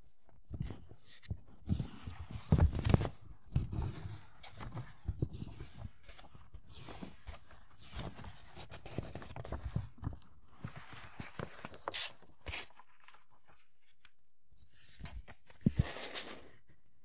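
Hands handling plastic model-kit parts and packaging: irregular rustling with scattered clicks and knocks, the loudest knocks about three seconds in, then a pause of a couple of seconds before a last short flurry.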